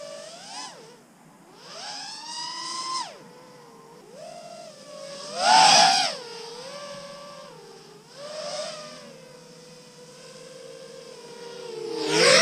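Motors and props of a 7-inch FPV quadcopter (Brotherhobby 2808 1500kv motors, Gemfan 7040 props) whining, the pitch climbing and dropping with each throttle change. It swells loudest as it passes close about six seconds in and again at the end.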